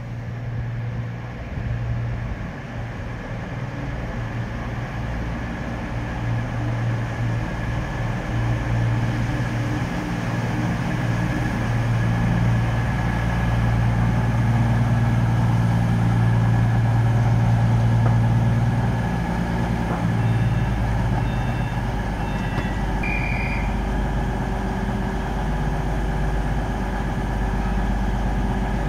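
Train running: a steady low drone that builds louder over the first two-thirds, then eases slightly. A few short high tones sound about two-thirds of the way through.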